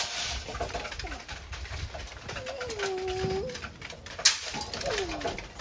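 Pigeon cooing: one long low coo about halfway through and a shorter falling coo near the end. Two sharp clicks, one at the very start and a louder one about four seconds in.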